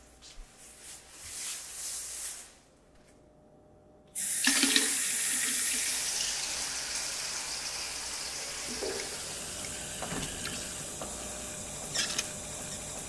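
Kitchen faucet turned on about four seconds in, water running steadily into a stainless steel sink, with a few light knocks and splashes as bell peppers are rinsed in a metal bowl under the stream.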